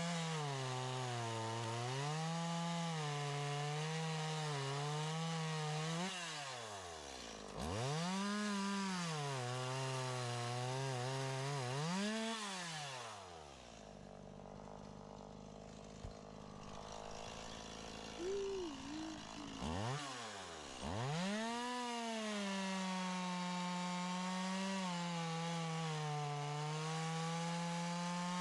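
Two-stroke chainsaw running and cutting, its engine pitch dipping and recovering again and again. About 13 seconds in the engine drops away and stays low for several seconds. It revs back up about 20 seconds in and holds a steady high pitch.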